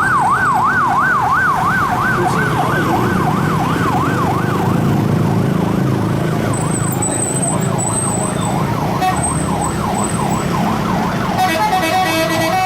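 A bus's telolet horn sounds a siren-style warble, its pitch swinging up and down about two or three times a second over a low engine rumble. The warble weakens after about six seconds. Near the end, a multi-note telolet horn tune starts.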